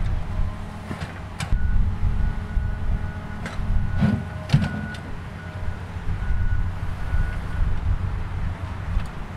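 A vehicle engine running steadily, with a few short clicks and scrapes of a hand tool against the metal base plate.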